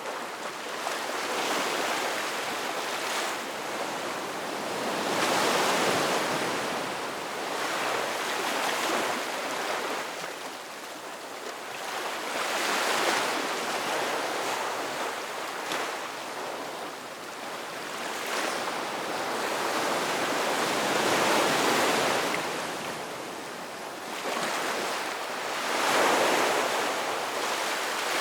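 Ocean surf: waves breaking and washing in, a continuous hiss that swells and ebbs, with several larger surges a few seconds apart.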